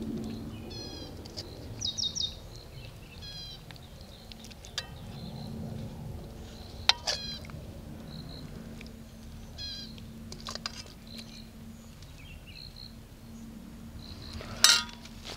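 Birds chirping in short runs of quick notes, several times over, above a faint steady hum. A couple of sharp clicks near the end.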